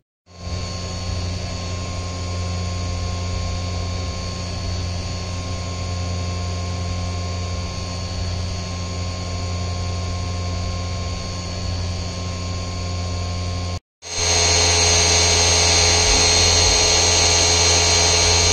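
CNC milling machine spindle running and a small end mill cutting aluminium: a steady machine whine with constant tones. A brief break about 14 seconds in, then the same kind of cutting, louder.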